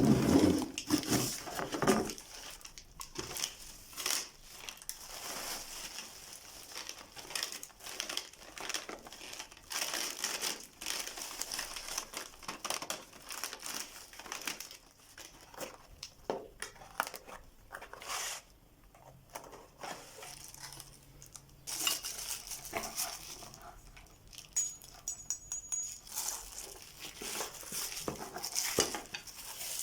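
Plastic wrapping and cardboard packaging being crinkled, torn and handled by hand while a box is unpacked, with irregular rustles and small taps and knocks.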